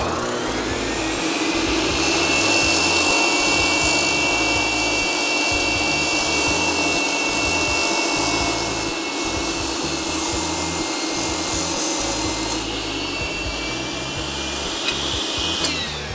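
IQ MS362 dry-cutting masonry saw with its built-in vacuum system starting with a rising whine, then running steadily while the 16½-inch blade cuts a masonry block. It is switched off near the end and winds down with a falling whine.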